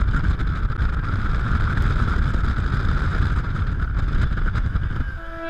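Car driving along a road at speed, a steady rumble of engine and tyres with wind noise on a car-mounted camera's microphone. Guitar music comes in right at the end.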